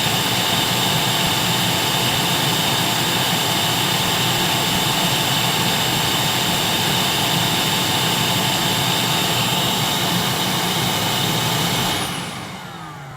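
Vacuum cleaner running with a steady whooshing whine, then switched off about twelve seconds in, its motor winding down with a falling whine.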